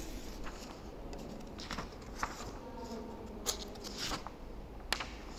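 A few soft clicks and rustles over a low, steady background hiss.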